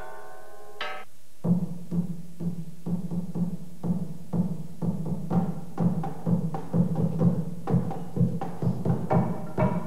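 Ringing pitched notes fade out in the first second. Then, about a second and a half in, a deep drum made from a green barrel starts being beaten with a mallet in a fast, steady rhythm of about three beats a second, with other percussion strikes mixed in.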